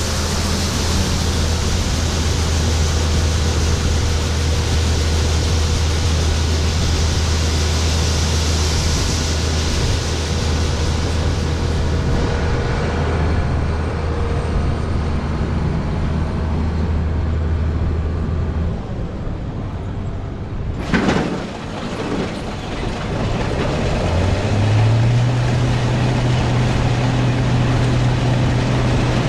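Case IH 2388 Axial-Flow combine's diesel engine and threshing machinery running steadily during soybean harvest. Near two-thirds through, the hum drops off, a short sharp knock is heard, and the engine comes back at a slightly higher steady pitch.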